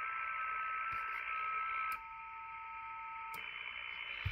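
Yaesu FT-One shortwave transceiver's speaker giving receiver hiss with a few steady whistling FT8 digital-mode tones on the 15-metre band. Several clicks follow as the band buttons are pressed; about two seconds in the hiss drops and different steady tones take over.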